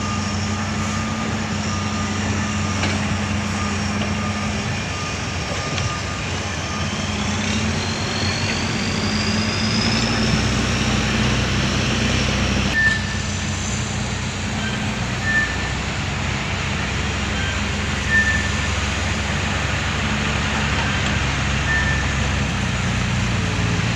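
Diesel engines of a Hitachi Zaxis 200 excavator and dump trucks running steadily, with a reversing beeper sounding a quick run of beeps for the first few seconds. A rising whine comes about a third of the way in, and single short beeps follow every few seconds later on.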